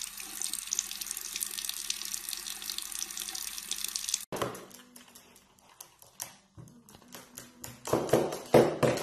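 Running water, a steady rush for about four seconds that cuts off abruptly, followed by scattered light clicks and knocks, a few of them louder near the end.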